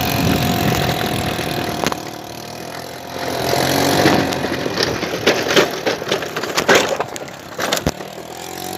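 Small 50cc scooter engine running as it is ridden, steady at first, dropping about two seconds in and picking up again a second later. In the second half comes a run of sharp knocks and rattles.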